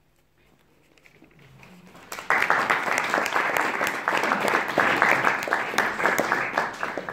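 Audience applauding, starting about two seconds in and tailing off near the end.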